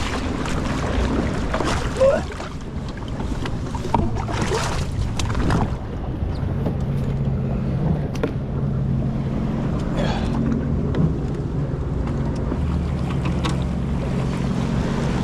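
Sea-Doo personal watercraft engine running steadily on the water, a low even hum, with water sloshing and wind on the microphone. A few short gusts of noise come about two seconds in and again around four to six seconds in.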